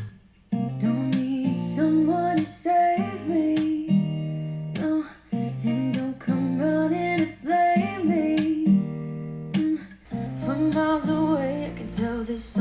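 A song of strummed acoustic guitar with a female voice singing, played back through desktop speakers and picked up by a microphone. The music drops out briefly near the start and again about ten seconds in.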